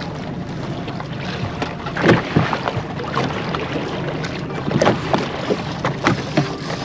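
Boat's outboard motor running at low trolling speed, a steady low hum, with a few short knocks about two, five and six seconds in.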